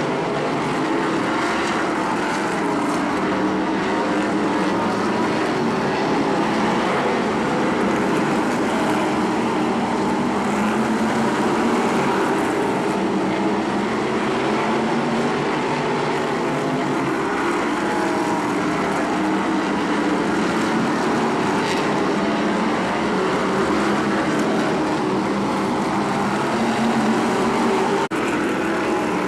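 A pack of modified stock cars racing, their engines running together in a steady, continuous drone. It breaks off for a moment near the end.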